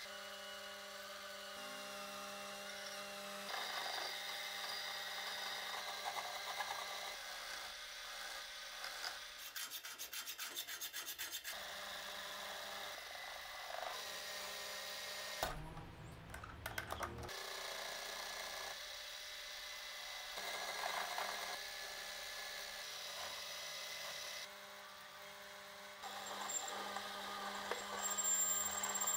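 Small metal lathe machining a copper billet: the motor hums steadily under the scrape and hiss of the tool cutting and drilling. The sound changes abruptly at several cuts. A rapid regular rattle comes about a third of the way in, and a short louder rush a little past halfway.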